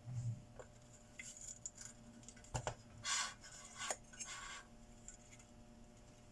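Small metal parts and tools clinking and clicking as they are handled during work on an inverter welding machine, with two short scraping rasps in the middle.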